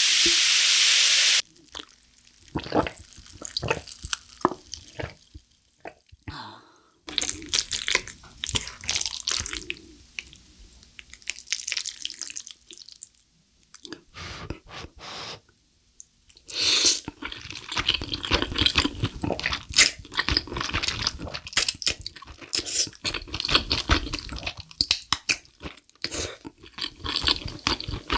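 Sparkling water fizzing as it is poured over ice in a mug, cut off after about a second and a half, then close-miked eating: slurping black bean noodles and chewing, wet smacks and clicks in uneven bursts that grow dense about two thirds of the way in.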